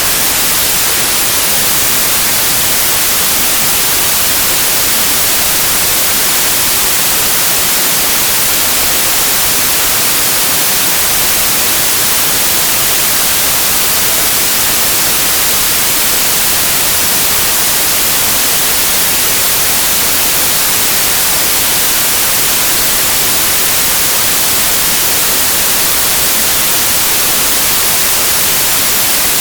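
Steady white noise: an even, loud hiss with no tones in it, heaviest in the highs and unchanging in level.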